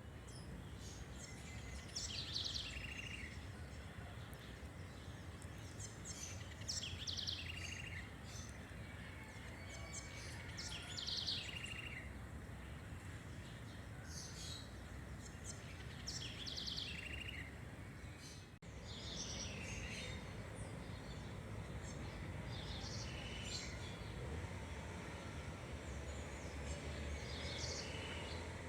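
A bird calling over and over, about once every two seconds, each call a short high note dropping into a lower one, over a steady low background rumble.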